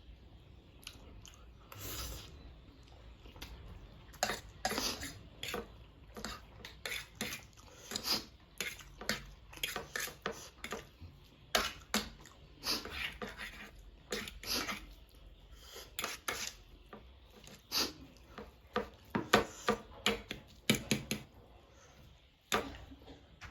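Eating sounds: a utensil clinking and scraping against a dish of noodles in many short, irregular clicks, with some longer smeared sounds in between.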